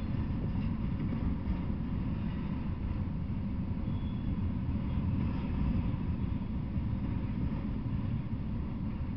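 Freight train of autorack cars rolling past: a steady low rumble of steel wheels on the rails, with a brief faint high squeal about four seconds in.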